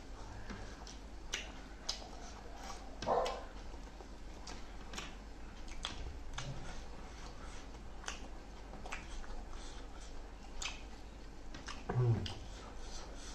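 Close-miked chewing and lip-smacking of people eating roasted chicken and rice with their hands: many sharp, wet mouth clicks at an irregular quick pace. A short hum-like vocal sound about three seconds in and another near the end.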